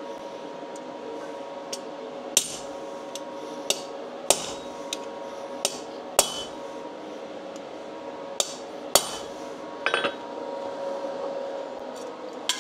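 Hammer striking a steel workpiece that has just been preheated with a welding torch: about a dozen sharp metallic blows at an uneven pace, some closer together about ten seconds in, over a steady background hum.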